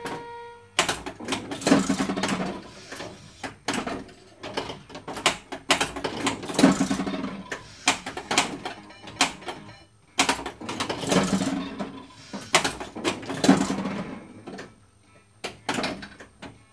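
Gottlieb Strikes and Spares pinball machine in play: the ball rolling with a low rumble while switches, solenoids and the playfield pins clack and knock in repeated bursts, quieter near the end.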